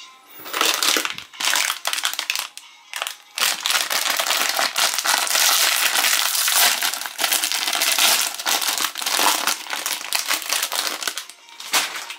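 Plastic wrapper of a Chipicao cap pack crinkling as it is torn open by hand, in dense spurts with a short pause about three seconds in and a last rustle near the end.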